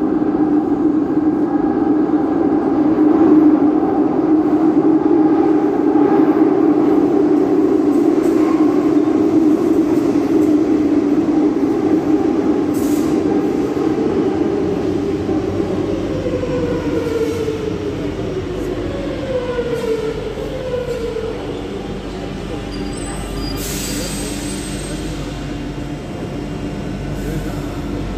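Madrid Metro train running into an underground station. A steady motor whine and rumble of wheels on rail come first, then several falling whines as the train slows, with a brief high hiss about 24 seconds in.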